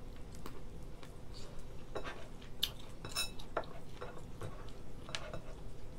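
Eating lobster by hand at a table: scattered small clicks and taps of shell and ceramic dishes, with one ringing clink of a dish about three seconds in.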